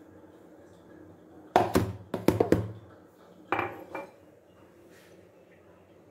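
A bowl knocked against a plastic container several times, giving sharp clinks and taps: a quick run of four knocks about a second and a half in, then two more about two seconds later.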